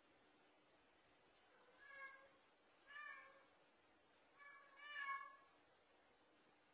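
Domestic cat meowing: a series of short, faint meows about a second apart, the last one the loudest.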